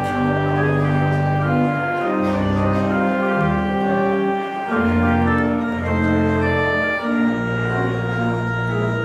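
Church organ playing sustained chords over a moving bass line, the chords changing about every second.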